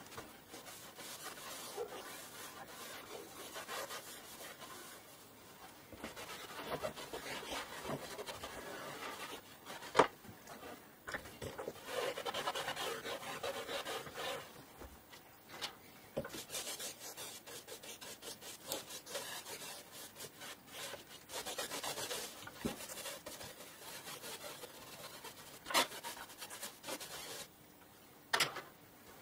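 A cloth rubbing and wiping over the textured vinyl covering of a Marshall valve amplifier head, in uneven strokes. A few sharp knocks cut through, the loudest about ten seconds in and two more near the end.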